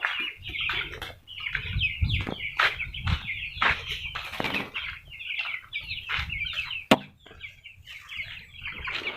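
A flock of young chickens, raised from day-old chicks, peeping and cheeping continuously in many overlapping high calls. There are scattered low thumps and one sharp click about seven seconds in.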